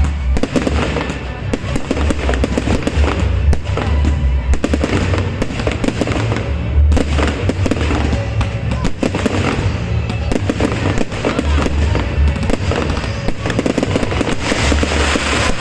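Fireworks display going off in a rapid, continuous barrage of bangs, with deep booms and crackling reports, over music.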